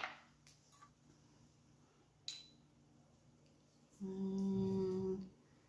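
Mostly quiet, with one faint click a little over two seconds in, then a woman humming a single steady note for just over a second near the end.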